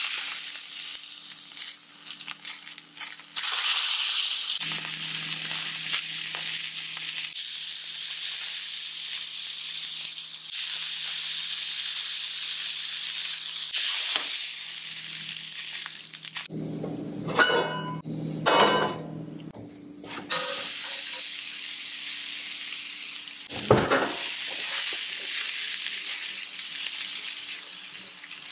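Steak fat sizzling steadily in a hot carbon steel skillet as the steak sears. The sizzle dips partway through under scraping and clatter, and there is a sharp knock a few seconds later, as metal tongs work against the pan.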